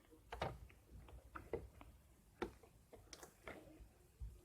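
Faint, irregular clicks and soft sticky pops of slime being handled.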